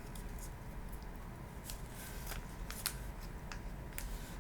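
Thin kami origami paper being handled and creased by hand: a scatter of short, faint crinkles and clicks.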